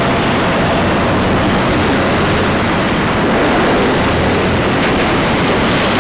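Freight cars of a Union Pacific manifest train rolling past: a steady, even rumble of wheels on rail with no horn or distinct clanks.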